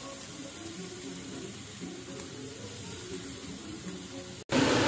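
Chicken, onion and spice mixture sizzling faintly in a frying pan. After a sudden break near the end, the sizzling comes back louder.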